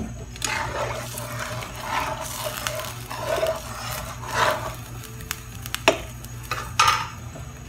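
Pan of water and vegetables heating on a gas stove: a steady low hum with a few soft, irregular cooking noises.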